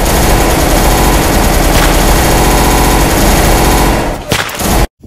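Loud, dense battle gunfire: continuous machine-gun fire mixed with rifle shots. It thins out about four seconds in and then cuts off abruptly near the end.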